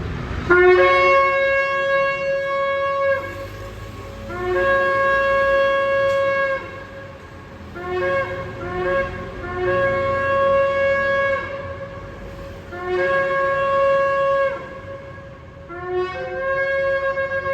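A shofar blown in a series of long blasts, each starting on a low note and jumping up to a higher held note. Around eight to nine seconds in there is a run of short broken notes before another long blast.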